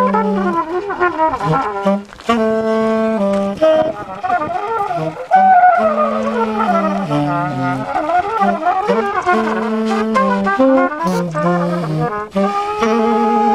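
A trumpet and a tenor saxophone play an improvised jazz duet. Long held low notes run under a winding melody line, with a loud new phrase coming in about five seconds in.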